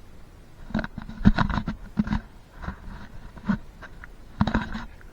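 Irregular muffled knocks and taps, about a dozen spread unevenly, heard through the microphone of a camera submerged in water.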